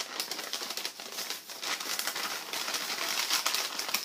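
Brown kraft-paper envelope crinkling and rustling as it is handled and opened, growing louder about halfway through.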